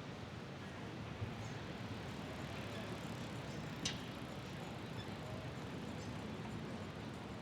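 Steady outdoor ambience, an even wash of background noise with no voices, broken by two sharp clicks: a small one about a second in and a louder one near the middle.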